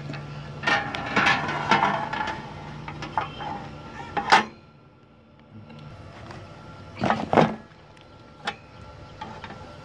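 Metal knocks and clatter as a finned Nokia RRH radio module is handled and seated in its sheet-metal mounting frame: a run of knocks at the start, a loud knock about four seconds in, and a quick pair of knocks around seven seconds. A steady low hum runs underneath.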